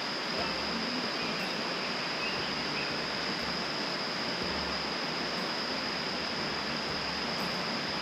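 Rainforest ambience: a steady rushing hiss with a continuous high-pitched insect trill, like a cricket's, held unbroken over it.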